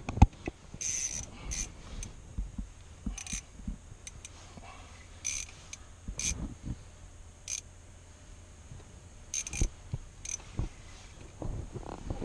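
Spinning reel's drag buzzing in short bursts, about eight times, as a hooked northern pike pulls line off an ultralight ice-fishing rod. A sharp knock just after the start.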